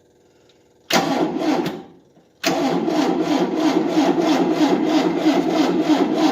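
Starter cranking the 1988 Tennant 255 Series II sweeper's engine without it firing: a short crank of about a second, then after a brief pause a longer steady crank with an even, quick pulse. The engine turns over but won't catch.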